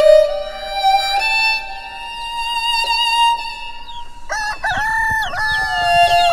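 Background music of long held notes, with a rooster crowing once about four seconds in.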